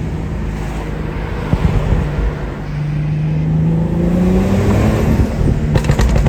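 BMW car engine running while driving, its pitch rising a little about halfway through, with road noise.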